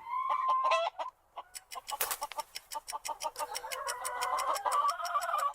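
Chicken clucking: a held call in the first second, then, after a brief pause, a rapid string of short clucks.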